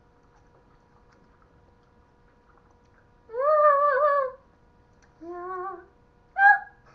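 A girl's wordless vocalizing: after a few quiet seconds, one loud high wavering note, then a softer, lower note, then a short sharp high squeal near the end. A faint steady hum runs underneath.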